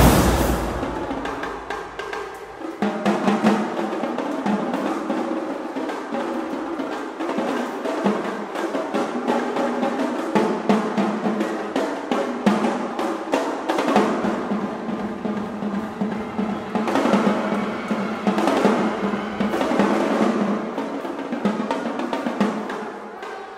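Marching band drumline playing fast rolls and rapid stick patterns on tenor drums. A deep, heavy hit rings at the very start and fades within the first second or so.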